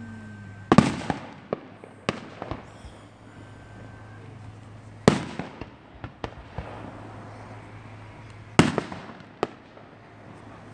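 Aerial fireworks shells bursting: three loud bangs about four seconds apart, with smaller pops and crackling between them.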